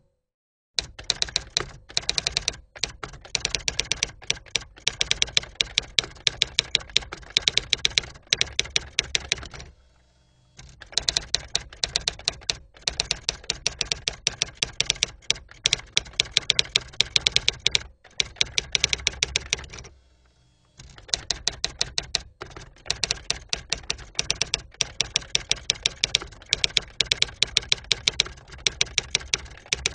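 Typewriter typing sound effect: rapid key clicks in long runs, breaking off briefly about ten and twenty seconds in.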